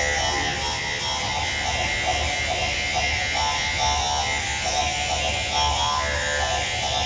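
Recorded music for the act playing over the circus arena's sound system: a melody over a steady low hum.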